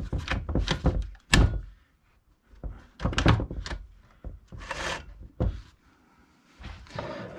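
Metal knocks, clicks and scraping from a chainsaw's guide bar and chain being worked on with a hand tool, several sharp thunks in uneven succession while the chain tension is being set.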